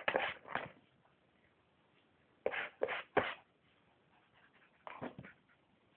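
Long-haired Chihuahua giving short, sharp barks: a couple at the start, three in quick succession about two and a half seconds in, and one more near the end.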